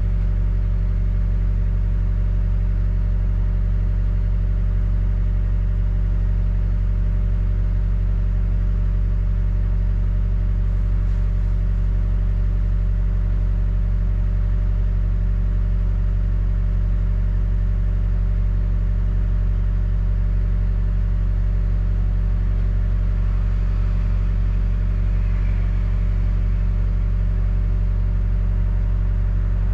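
A London double-decker bus's engine runs at a steady pitch, heard from inside the bus as a constant low drone.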